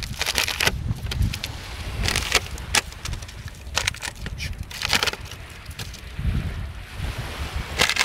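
Dog pawing and scraping at beach sand and pebbles, making short irregular scratchy crunches over a steady low wind rumble on the microphone.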